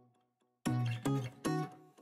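Background music: guitar chords. After a brief near-silent gap, they pick up again about two-thirds of a second in.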